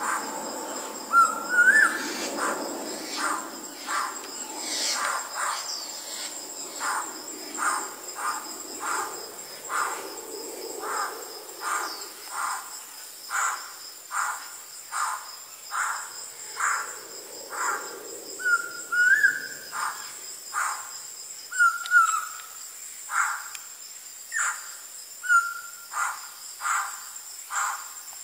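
Laughingthrush (poksay hongkong) calling: a short rising whistled phrase comes a few times, about a second in, then near 19, 22 and 25 seconds. Around it runs a regular harsh note about once a second, over a steady high insect drone.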